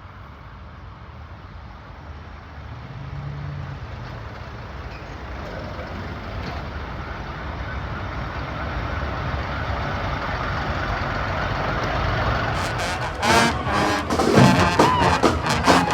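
Steady street noise with a low rumble, slowly growing louder. About thirteen seconds in, a high school marching band strikes up loudly with brass and drums.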